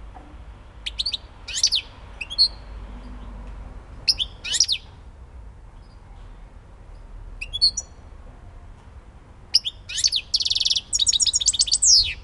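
Caged European goldfinch singing: scattered short, high twittering notes, then near the end a longer, louder run of twitters with a buzzy trill in the middle of it.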